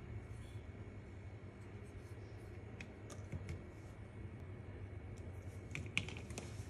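Light clicks and taps of handling: a wooden slingshot frame cut from a paintbrush handle is set down on a tabletop and rubber tubing is handled. A few scattered clicks come about three seconds in, and a quick cluster of sharper clicks near the end, over a faint steady low hum.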